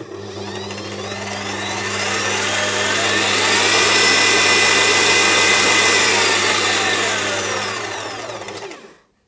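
Kenwood Chef KMC510 mixer's brushed motor running after a brush repair: a rising whine as it speeds up over the first few seconds, holding steady, then falling as it slows and stops about nine seconds in. A steady low hum runs underneath.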